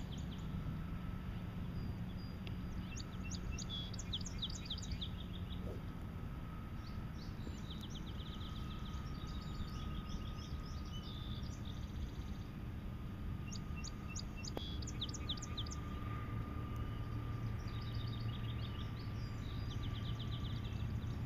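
A songbird singing short trills of quick high notes, repeated every few seconds, over a steady low background rumble.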